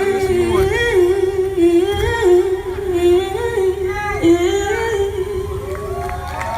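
A female singer holding a wordless melody line, humming or vocalising in long gliding notes, over a band's low accompaniment.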